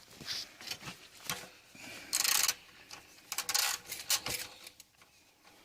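Scattered clicks, light knocks and a couple of short rasping scrapes of hands and tools working on a Honda XL 100S motorcycle as its fuel tank is taken off.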